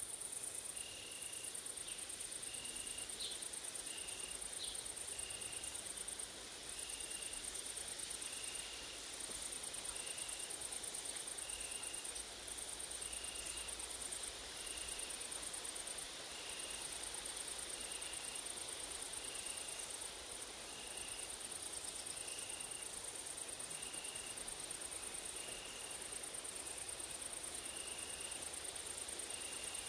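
Grasshoppers and crickets trilling in a continuous high, shrill buzz that breaks off briefly every few seconds. Under it a short chirp repeats at an even pace, about every second and a half, and two quick higher chirps come a few seconds in.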